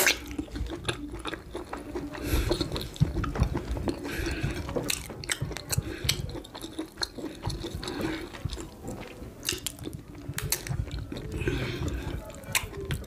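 Close-miked chewing and wet mouth sounds of someone eating amala with ewedu and gbegiri soup: irregular lip smacks and sharp sticky clicks.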